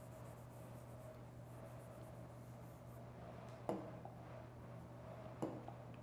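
Stylus on an interactive display screen: faint scratching in the first half, then two sharp taps about a second and a half apart, over a faint steady hum.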